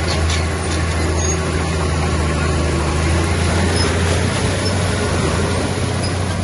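Heavy diesel engine of earthmoving machinery running steadily with a deep, even drone, and a few light clicks just after the start.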